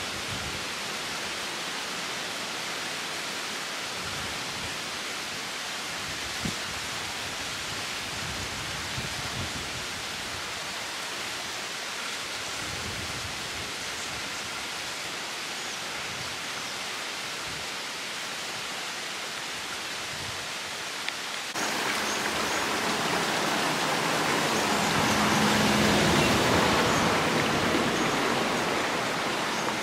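Steady rush of running water. About two-thirds of the way in it jumps louder, swells and eases off again, with a faint low hum near its loudest.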